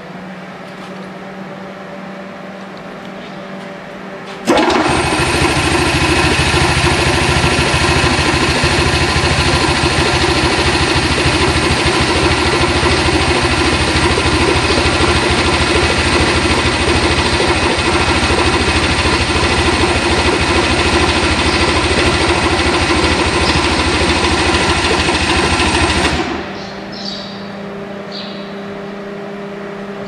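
Electric vacuum pump on an annealing furnace switching on about four seconds in, running loud and steady with a fast even pulsing for about twenty seconds, then shutting off suddenly, leaving a low steady hum. It is evacuating the furnace before it is filled with nitrogen.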